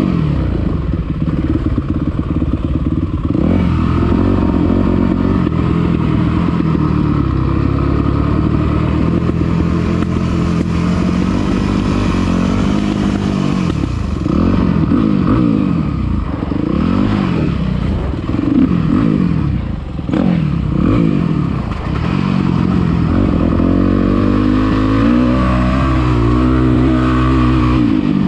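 Dirt bike engine running hard on a trail ride, revving up and down so its pitch rises and falls over and over, most busily in the second half.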